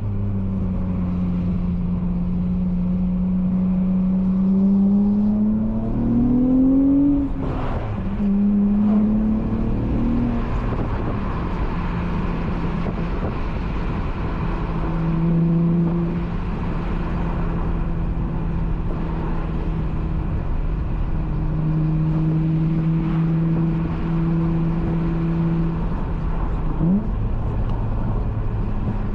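Honda Accord V6 coupe's swapped J32A3 V6 running through a Skunk2 Megapower single-exit exhaust while driving. The revs climb for a couple of seconds, then drop after a gear change about seven seconds in. After that the engine holds steady cruising revs, with a quick rev blip near the end.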